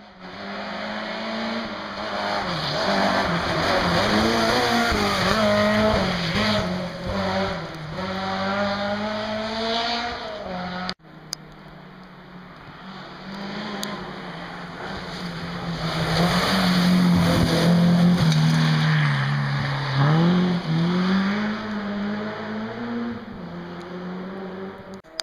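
Rally car engine revving hard and changing gear as it drives a stage, rising and falling in pitch with each shift. After a sudden cut about eleven seconds in, a second rally car is heard approaching and accelerating, growing louder and peaking about two-thirds of the way through.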